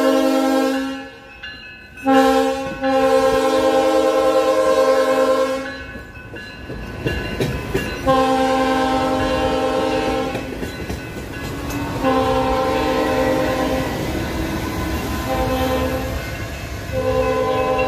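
Coaster commuter train horn sounding a series of blasts at a grade crossing: a chord of several steady tones in repeated long blasts, with a shorter one near the end. Between the blasts comes the rumble and clatter of the bi-level cars rolling over the rails.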